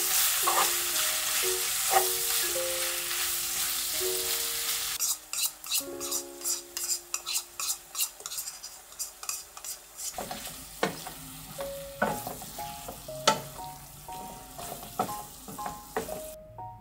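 Meat and vegetables sizzling in a nonstick wok as they are stir-fried with a wooden spatula. About five seconds in the sizzle drops away, leaving a quick run of spatula scrapes and knocks against the pan, which go on more softly to the end. Soft piano music plays underneath.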